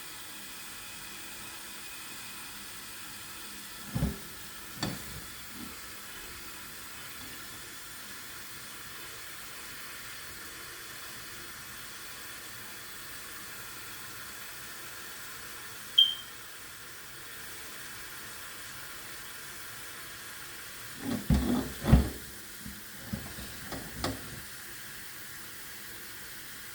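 Kitchen tap running steadily as a pot is filled with water. A few knocks come through the flow, with one sharp clink partway through and a cluster of knocks near the end.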